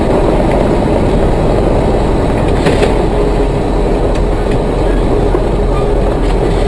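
Steady rumble of road and engine noise inside a moving car, as a dashcam picks it up, with a faint steady hum; no distinct impact stands out above it.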